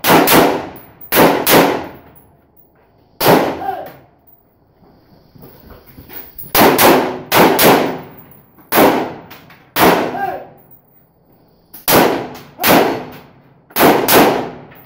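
AR-style semi-automatic rifle firing a string of shots under a tin barn roof, singles and quick pairs, with a pause of about two and a half seconds in the middle. Several shots are followed by a metallic ring.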